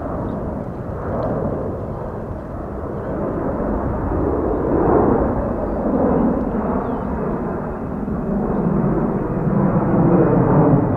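Jet airliner's engines running at takeoff power: a broad, deep rumble that slowly grows louder.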